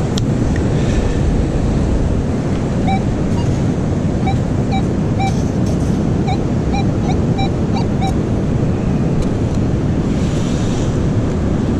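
Steady ocean surf and wind on the microphone. Between about three and eight seconds in, a metal detector gives a run of about a dozen short, high beeps at one pitch as it passes over a buried target.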